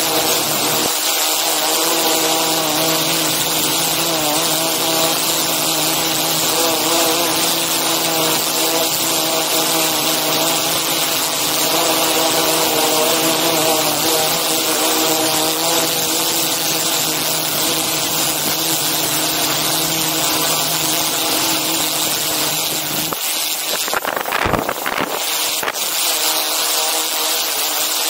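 DJI Inspire 2 quadcopter's propellers and motors running loudly and steadily, a stack of tones drifting slightly in pitch over a hiss. Near the end a brief gust of wind buffets the microphone.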